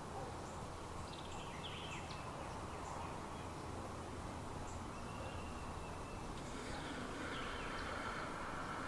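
Outdoor ambience: scattered faint bird chirps over a steady background hiss, with a faint steady high hum coming in about two thirds of the way through.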